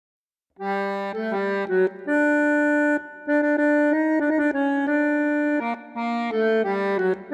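Solo bandoneon playing sustained chords and short melodic phrases, entering about half a second in, with brief breaks between phrases.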